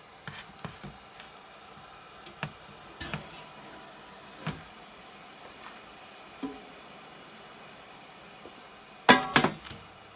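Kitchen clatter: scattered light knocks and clicks of dishes and utensils, then a louder burst of several ringing knocks near the end.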